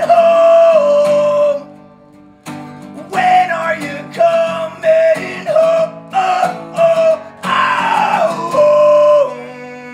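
Male voice singing loudly over a strummed acoustic guitar. There is a brief break about two seconds in, then the strummed chords and singing return, and a chord is left ringing and fading near the end.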